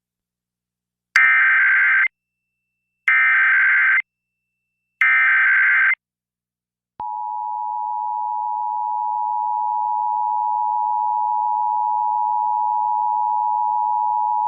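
Emergency Alert System test signal: three one-second bursts of SAME header data, each a harsh buzzing warble, separated by short gaps. About seven seconds in, the steady two-tone EAS attention signal begins and holds.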